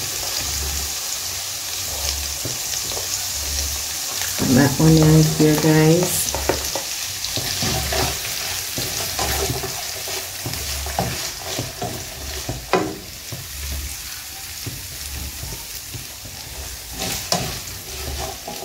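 Chopped onions sizzling in hot oil in a nonstick frying pan while a slotted plastic spatula scrapes and stirs them, with a couple of sharper taps of the spatula in the second half. A brief pitched hum stands out about five seconds in.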